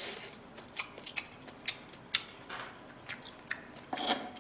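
Close-miked chewing of a mouthful of fried rice: small irregular mouth clicks and soft crunches, a few a second, with a fuller burst of noise about four seconds in.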